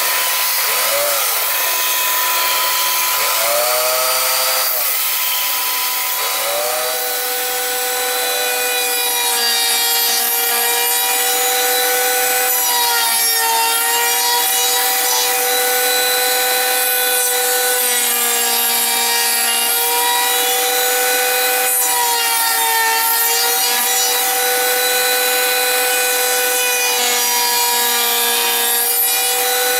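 Electric power saw cutting wood: its motor whine rises and falls a few times, then runs steadily with brief dips in pitch under load, over a rasping sawing noise.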